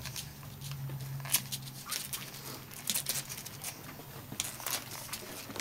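Newborn puppies suckling and squirming against their mother on bedding: scattered soft clicks, smacks and rustling. A low steady hum fades out about two seconds in.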